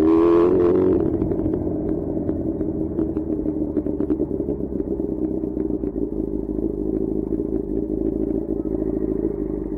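Sport motorcycle engine heard from the rider's seat, easing off from a light rev in the first second and then running steadily at low revs as the bike rolls slowly to a stop, with a light ticking over the hum.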